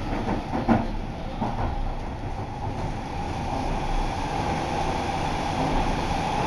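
Running noise inside a Yokohama Municipal Subway Green Line linear-motor metro car under way: a steady rumble with a few clicks in the first second or so, growing a little louder and harsher after about three seconds as the train runs into a tunnel.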